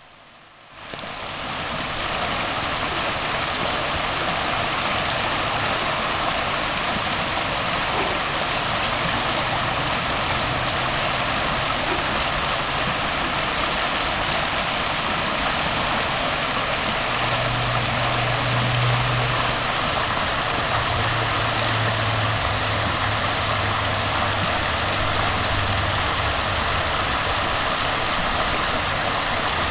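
Shallow, rocky stream rushing steadily over riffles of white water, starting about a second in. A low droning hum comes and goes past the middle.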